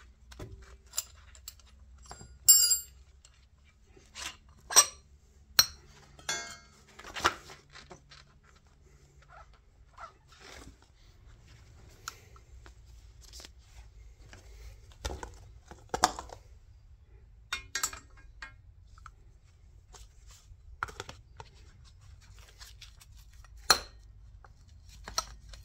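Scattered metal clinks and knocks of a spanner and car suspension parts being handled: the top nut worked off an old rear shock absorber, then a new coil spring fitted over a new shock. The loudest clanks come about two and a half and five seconds in.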